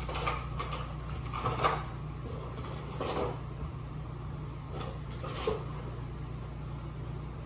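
Plastic action figure and its proton pack accessory being handled: a handful of short plastic clicks and rustles over a steady low hum.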